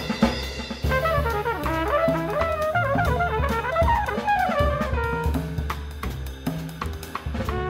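Small jazz group playing: a trumpet runs through a quick line of notes over double bass and a drum kit with cymbals.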